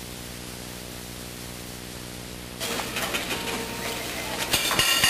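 Steady electrical buzz-hum from a camcorder recording over a blank black stretch of tape. About two and a half seconds in it gives way to room noise, with a few light knocks near the end.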